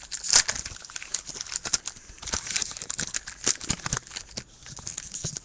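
Foil wrapper of a Topps baseball card pack crinkling and tearing open by hand: a dense, irregular run of crackles and snaps.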